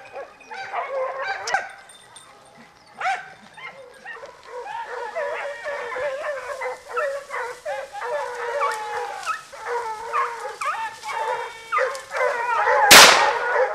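A pack of scent hounds baying in pursuit of a wild boar, many voices overlapping. Near the end, a single .410 shotgun shot is the loudest sound, with a short echo after it.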